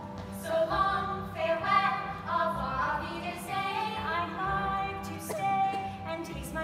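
High voices of a stage musical's cast singing a show tune in a live performance, the notes stepping up and down from about half a second in.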